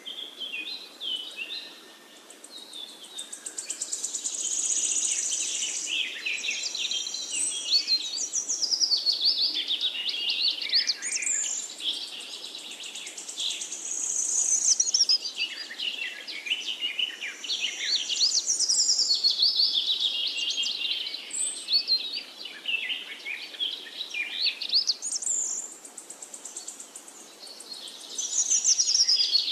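Forest songbirds singing and chirping over one another in a dense chorus of quick high notes and trills, swelling and thinning every few seconds, over a faint steady background hiss.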